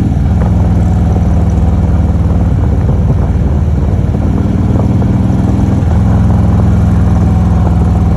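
Motorcycle engine running under way, heard from the bike itself; the engine note shifts in steps several times as the throttle and gears change through the curves.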